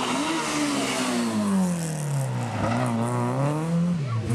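Rally car engine slowing hard for a tight bend: its note falls steadily for about two seconds, then rises again as it accelerates away, with a quick dip near the end at a gear change.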